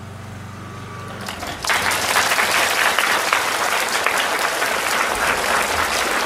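Audience of schoolchildren applauding: dense clapping breaks out suddenly about one and a half seconds in and carries on steadily. Before it there is only a low steady hum.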